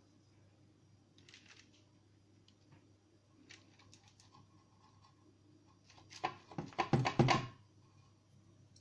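Metal clatter of an oven and baking tray being handled: a quick run of knocks and rattles lasting about a second and a half, starting about six seconds in, after a few faint clicks and scrapes.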